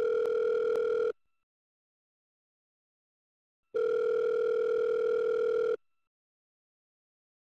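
Telephone ringback tone: a steady electronic tone rings for about two seconds, stops, then rings again for about two seconds with dead silence between, the caller's line ringing while he waits for an answer.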